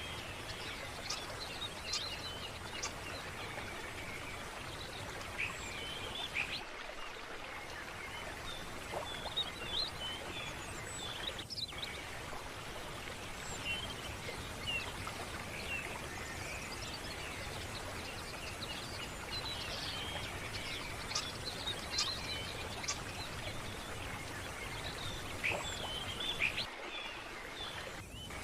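Running water of a stream, steady, with birds chirping on and off over it.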